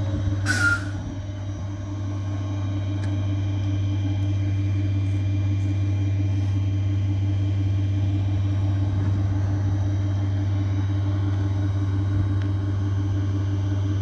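Regional train standing at a station platform, its equipment running with a steady low hum. About half a second in there is a short burst of compressed-air hiss with a brief squeal.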